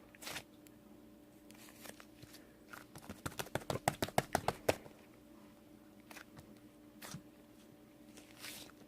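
A quick run of light clicks, about ten a second for under two seconds, with a few single clicks before and after, over a faint steady hum.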